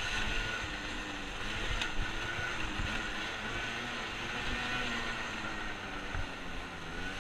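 Arctic Cat ATV engine running while the quad is ridden, its pitch rising and falling with the throttle.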